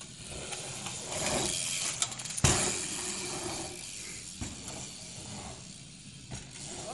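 BMX bike riding on packed dirt: tyres rolling with a ratcheting freewheel tick, and a sharp knock about two and a half seconds in, the loudest sound.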